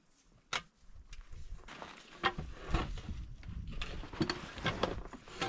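Irregular knocks, clicks and short creaks of a box being handled, over a low rumble of wind on the microphone.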